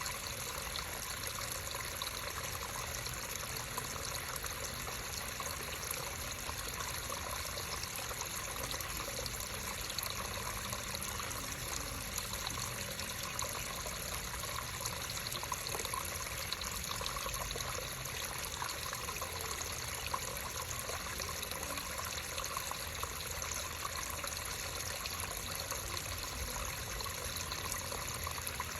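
Creek water running and trickling steadily, a continuous babble without pauses.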